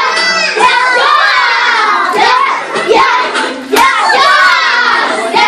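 A group of children shouting and singing over one another, loud and continuous, with a few sharp hand claps a few seconds in.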